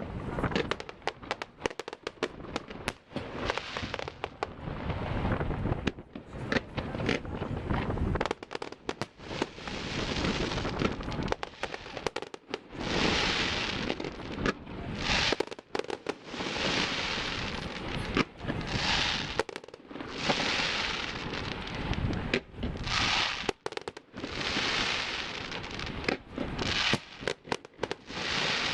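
Fireworks display: many sharp bangs in quick succession, with stretches of crackling hiss from the bursting shells between them.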